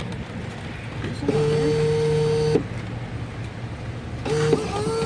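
A vending machine's bill acceptor motor whirring: one steady whir of about a second that starts and stops abruptly, then two short whirs near the end, over a low steady hum.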